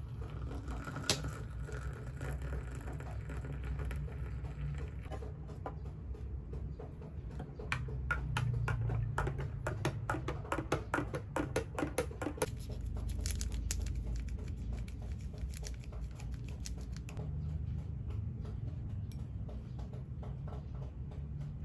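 Water poured from a kettle into a small glass, then a metal spoon stirring briskly in the glass, clinking rapidly against its sides for several seconds about a third of the way in, with a few lighter taps after.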